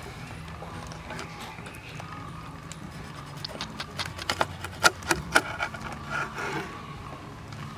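Cleaver cutting into a whole fish on a wooden chopping block: a run of quick, sharp knocks as the blade goes through and strikes the wood, starting about three seconds in and ending near the seventh second, loudest about five seconds in. A steady low hum runs underneath.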